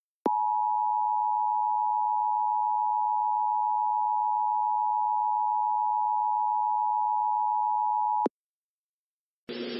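Emergency Alert System attention signal: a steady two-tone alarm, 853 and 960 Hz sounded together, held for about eight seconds and cutting off abruptly. It signals that an emergency warning message follows.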